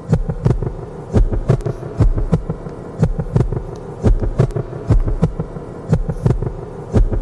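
Post-rock song intro: a programmed drum pattern of quick hits, with a deep kick accent about once a second, over a steady held drone.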